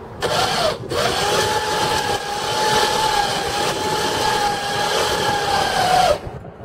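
A boat crane's winch motor whining at a steady pitch. It starts briefly, stops under a second in, then runs for about five seconds before winding down near the end.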